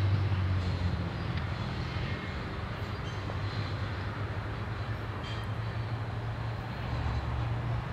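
Canadian Pacific GE diesel-electric locomotives working as a train of tank cars pulls away, a steady low engine drone over the rumble of the cars on the rails. It is loudest at the start and eases off after about a second.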